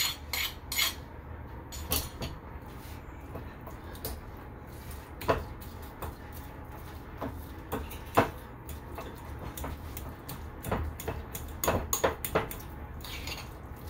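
Fork clicking and scraping against a bowl as guacamole is mashed and stirred: irregular knocks, a few sharper ones, over a low steady hum.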